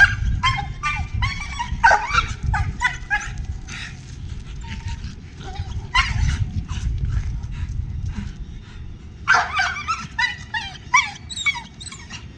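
Leashed pit bull barking and yelping at other dogs in quick runs, a cluster in the first three seconds and another from about nine to twelve seconds: leash reactivity toward other dogs. A low wind rumble on the microphone runs under it.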